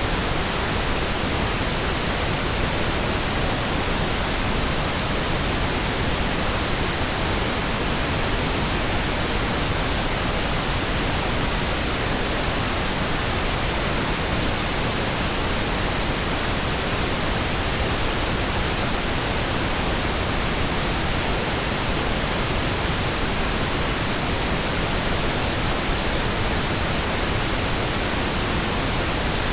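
Steady, even pink noise: a smooth, continuous hiss without changes or interruptions.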